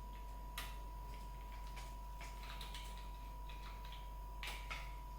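Faint, scattered clicks and light taps of plastic parts being handled as a tripod's mobile-phone holder is pushed into its mounting hole, over a faint steady hum.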